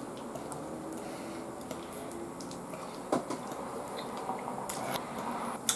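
Wooden chopsticks picking apart grilled eel on a ceramic plate, with two sharp clicks against the plate, one about three seconds in and one at the end, over soft wet eating sounds.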